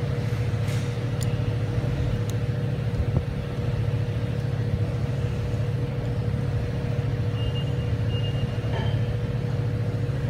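Steady low mechanical hum with a constant pitched tone in it, as of machinery running in a shop. A few faint metal clicks in the first couple of seconds from a spanner wrench working a steel lock nut, and a brief faint high squeak about seven seconds in.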